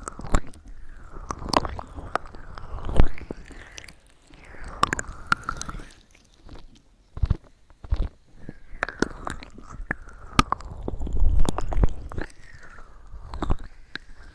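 Close-miked ASMR mouth sounds: wet clicks and smacks in irregular bursts, with short pauses between them.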